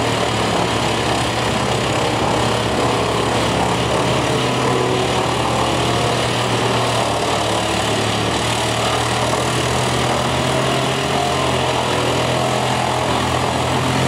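Bruks mobile drum chipper running steadily while chipping logs fed in by a grapple crane: a constant, loud engine drone with a steady low hum.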